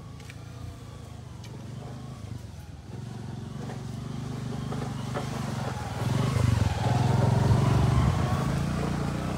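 Engine of a passing motor vehicle, growing louder over several seconds, loudest about six to eight seconds in, then easing off.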